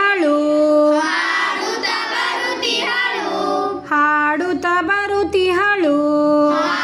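Group of children and women singing a Kannada children's song together, with long held notes and short breaths between phrases.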